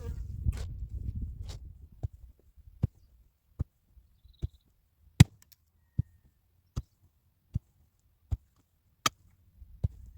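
Steady, unhurried blows of a tool striking wood, about eleven sharp strikes, one every 0.8 seconds or so. They start after a second or two of low rustling and handling noise.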